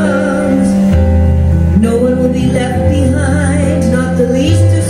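A woman sings with vibrato over sustained chords played on a Roland FP-7 digital piano. The chords change about a second in and again just before two seconds.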